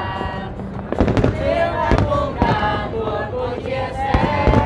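Aerial fireworks shells bursting in a display: a string of sharp bangs at uneven gaps, with one near the end. Music with a melody line plays throughout.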